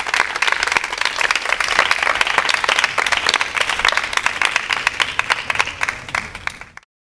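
Audience applauding, dense irregular claps that thin out and then cut off suddenly near the end.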